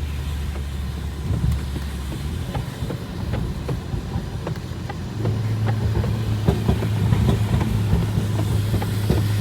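Tuned BMW 330i's engine droning with tyre and road noise inside the cabin while driving; about five seconds in, the drone steps up in pitch and gets louder as the engine revs higher.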